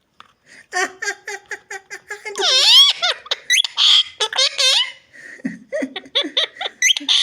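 Talking parrot mimicking human laughter: a quick run of short "ha-ha" notes, then higher, drawn-out laughing calls that rise and fall in pitch.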